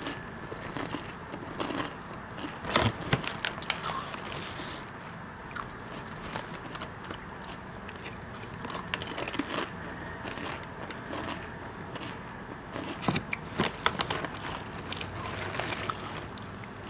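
Lay's potato chips crunched and chewed close to a clip-on lavalier microphone, in bursts of crisp cracks that are thickest about three seconds in and again around thirteen to sixteen seconds in.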